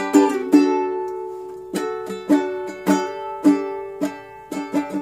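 Ukulele strummed in chords, with no voice. Two quick strokes open, then a chord is left ringing for just over a second, then single strums fall about every half second.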